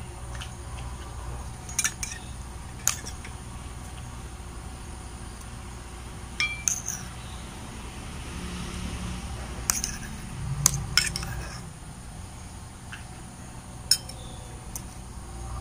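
Metal spoons clinking and scraping against stainless steel bowls as cut fruit pieces are spooned out, in scattered sharp clinks a second or more apart.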